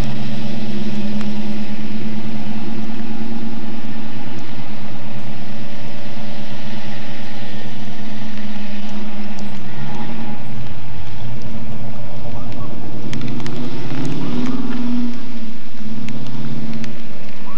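1970 Ford Mustang Boss 302's V8 engine running steadily as the car drives off. From about halfway in, wind rumbles on the microphone, and the engine note shifts in pitch near the end.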